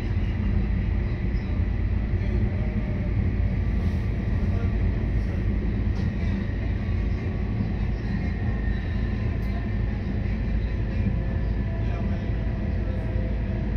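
Stadler GTW-D diesel-electric train under way, heard from inside the passenger cabin beside its power module: the diesel engine runs with a steady, heavy drone, mixed with a faint whine from the electric traction motors and the rumble of the wheels on the track.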